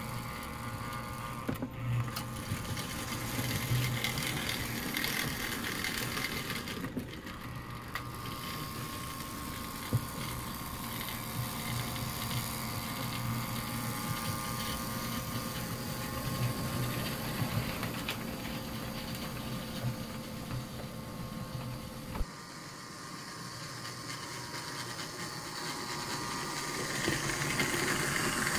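American Flyer S gauge 4-4-0 steam locomotive running slowly on the track: a steady motor and gear hum. Its reverse unit is nearly silent, a sign that the rebuilt motor is running free and cool at low voltage. A single click about three-quarters of the way through, after which the low hum drops away.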